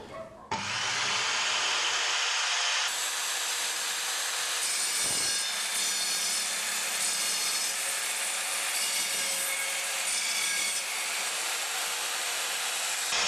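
Evolution Rage 210 SMS sliding mitre saw with its multipurpose tungsten carbide tipped blade running and cutting through a timber board with 4-inch galvanized steel wire nails driven into it. The cut starts suddenly about half a second in, is steady and loud, and turns brighter about three seconds in.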